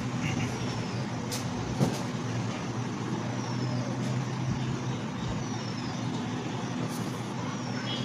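Steady low droning background hum with a soft click about two seconds in.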